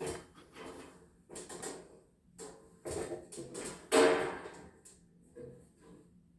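Irregular scraping, rubbing and knocking of objects being handled, with the loudest knock about four seconds in.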